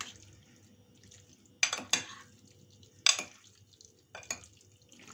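Two metal spoons stirring marinated chicken breast pieces in a glass baking dish, with about five sharp clinks of spoon against glass; the loudest comes about three seconds in.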